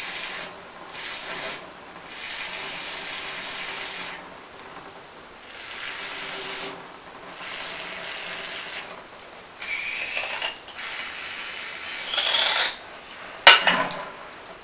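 Aerosol brake cleaner sprayed in repeated hissing bursts of one to two seconds onto a fork valving part to flush it clean, with a faint whistling tone in two of the later bursts. A sharp knock near the end.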